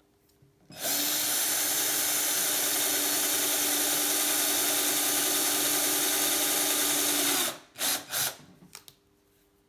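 Electric drill running steadily for about six and a half seconds as it bores a small hole through a bicycle seat post, then two short blips of the drill just after it stops.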